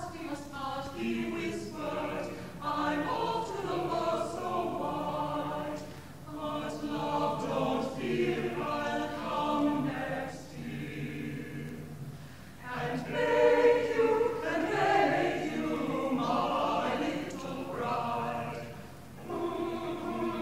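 Small mixed-voice choir singing a Victorian part-song in harmony, in phrases with short breaks between them.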